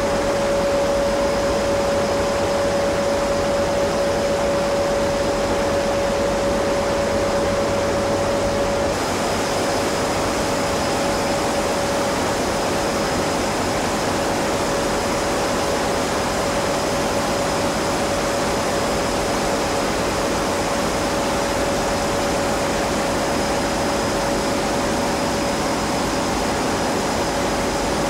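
Ship's engine-room machinery running: a loud, steady hum and hiss with a steady whine through it. The sound shifts slightly about nine seconds in, brightening as the whine weakens.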